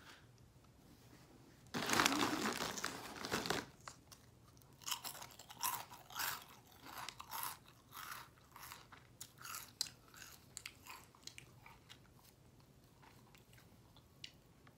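A person chewing crunchy snack chips: a loud two-second burst of crunching about two seconds in, then a run of short irregular crunches that thin out after about eleven seconds.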